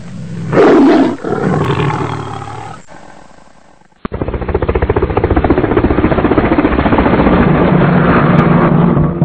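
A lion's roar, loudest about half a second in and fading out over about three seconds. After a short gap, a longer, steady, rough rumbling sound with a fast pulse begins suddenly.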